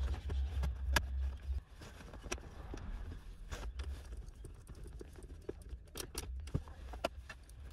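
Irregular clicks and knocks of a plastic car centre-console panel being handled and pressed into place, with a screwdriver working at its screws. A low rumble lasts for about the first second and a half.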